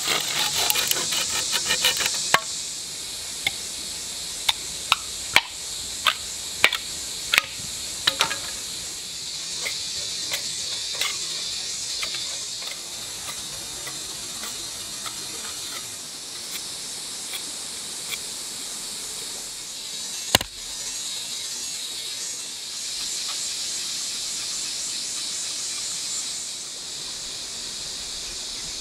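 A pruning saw cutting green bamboo with quick, even strokes, which stop about two seconds in. Then a run of about ten sharp cracks as bamboo is split into thin strips with a cleaver, followed by softer ticks and one more sharp crack later on. A steady high hiss runs underneath throughout.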